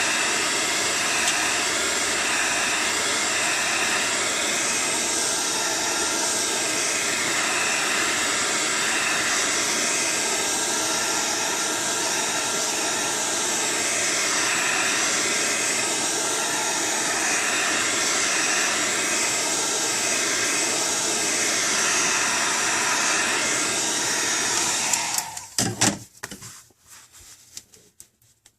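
Hot-air blower running steadily, softening the adhesive under the tablet's cracked touch-screen glass so it can be pried off. It switches off near the end, followed by a few light clicks of handling.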